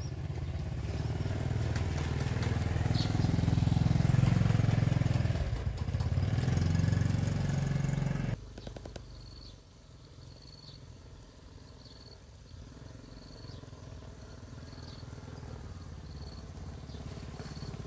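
Small step-through motorbike engine running as it rides toward the listener, growing louder, then cutting off abruptly a little past the middle. After that a motorbike is heard more faintly, slowly getting louder as it approaches, with a short high chirp repeating about once a second.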